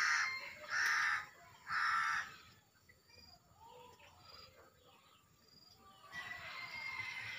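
A crow cawing: three harsh calls about a second apart, then more calling building near the end.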